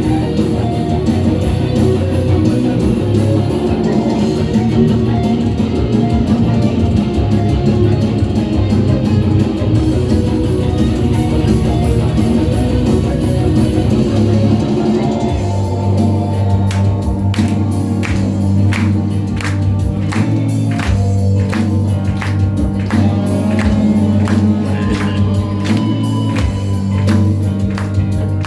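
Live heavy metal band playing, with distorted electric guitars, bass and drums. About halfway through the texture changes to held low notes under regularly spaced drum hits.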